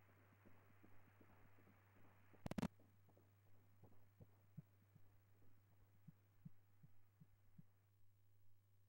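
Fetal heartbeat from a GE ultrasound scanner's pulsed-wave Doppler audio at 12 weeks' gestation: faint, rhythmic whooshing pulses about two and a half a second, over a low hiss and a steady hum. A brief cluster of loud clicks comes about two and a half seconds in.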